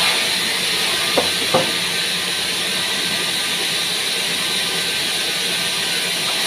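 Large vertical band saw running with a steady hiss, with two short wooden knocks about a second and a half in as pieces of pine offcut are handled.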